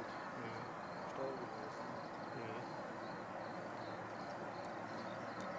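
Steady distant whine and rush of a Boeing 777 freighter's GE90 jet engines at taxi thrust, heard across the airfield, with faint high chirps scattered over it.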